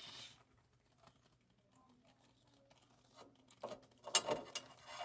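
Faint clicks and scrapes of a replacement hot surface igniter being lined up and pushed into its sheet-metal mounting in a gas furnace's burner area. Mostly quiet at first, with short handling clicks in the last second and a half.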